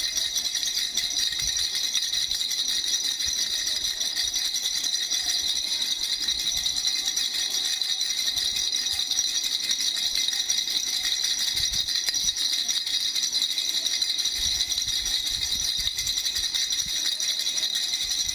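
Baby rattle shaken without pause: a dense, steady rattling with a high ringing tone running through it.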